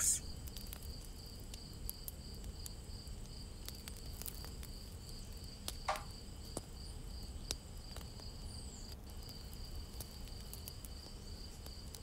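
A cricket trilling steadily in a high, evenly pulsing tone, with a few faint taps and ticks.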